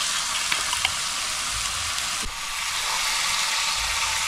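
Marinated beef and chicken sizzling on a round stone-coated grill pan over a portable gas stove on high flame: a steady hiss, with a few light clicks of chopsticks on the pan about half a second in.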